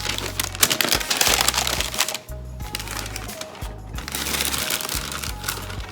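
Background music, over paper rustling and crinkling in two spells, about half a second in and again around four seconds in, as the shoes are uncovered in their box.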